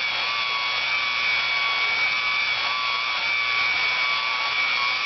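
Variable-speed electric polisher running steadily at high speed with a constant whine, its pad buffing polishing compound into a Corian countertop's sanded scratch repair.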